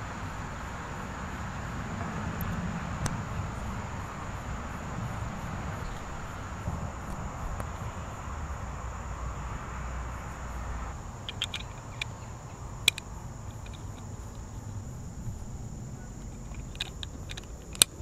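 Steady outdoor ambience with a constant high insect drone and a low rumble, broken by a few sharp clicks and small ticks of plastic Lego Technic pieces being pressed and fitted together; the two loudest clicks come about two-thirds of the way through and near the end.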